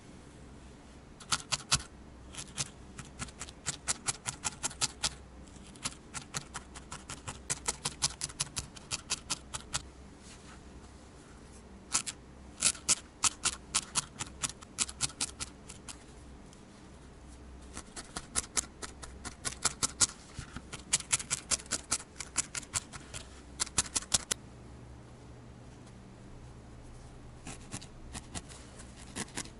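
Felting needle stabbing rapidly into a ball of wool, a crisp crunchy poke several times a second, in runs of a few seconds with short pauses between.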